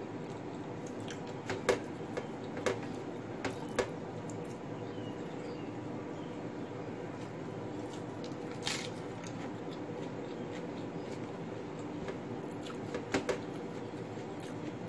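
Eating by hand: short, sharp mouth smacks and clicks as fried fish and rice are picked apart and chewed, and a crisp crunch about nine seconds in as a raw lettuce leaf is bitten. A steady low hum runs underneath.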